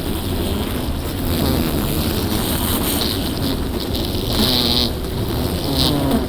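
Honeybees buzzing in a wintering hive: a steady colony hum, with single bees buzzing close to the microphone, rising and falling in pitch, about halfway through and again near the end. The hum is the sign that the colony is alive.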